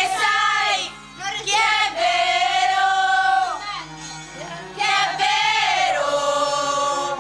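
A group of girls singing together into a handheld microphone, with long held notes and a couple of brief pauses.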